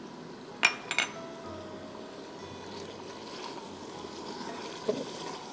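Mutton in liquid simmering in an aluminium pot as it is stirred, a faint wet trickling, with two sharp clinks close together about a second in.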